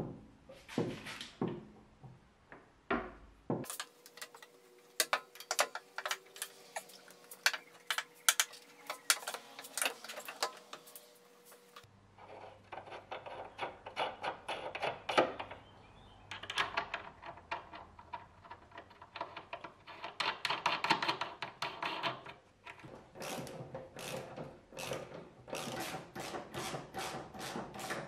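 Hand tools and metal parts clicking, clinking and knocking as a steering rack is fitted and bolted in, with a sharp knock right at the start and runs of rapid clicks, like a ratchet being worked.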